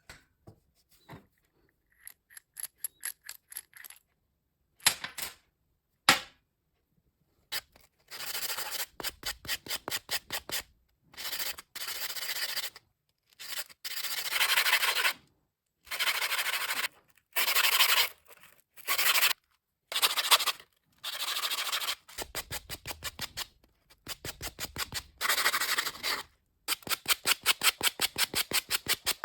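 Rapid back-and-forth abrasive strokes made by hand, about four a second, in runs of one to three seconds with short pauses, as a part of an old manual hand drill is cleaned up for restoration. Two sharp knocks about five and six seconds in are the loudest sounds.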